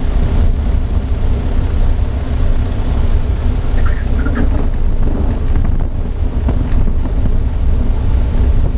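Ercoupe light aircraft's air-cooled four-cylinder engine and propeller running at low power while rolling on the runway, a steady low rumble heard from inside the cockpit.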